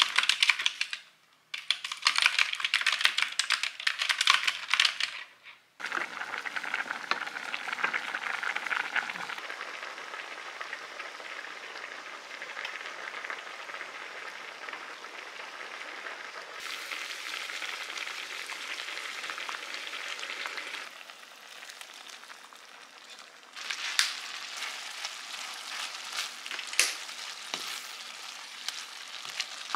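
Computer keyboard typing, fast and clicky, for the first six seconds or so. Then food sizzling in a frying pan, a steady hiss, with a wooden spoon stirring and knocking in the pan in the last few seconds.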